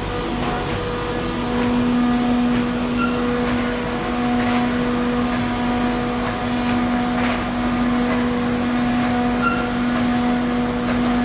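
Single facer corrugated paperboard production line with its stacker running: a steady machine drone with a constant pitched hum and a few faint knocks.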